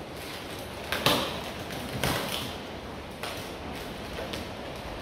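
A plastic-wrapped cardboard shipping box being worked open: rustling and scraping of tape and plastic wrap, with a sharp knock about a second in and lighter ones near two and three seconds in.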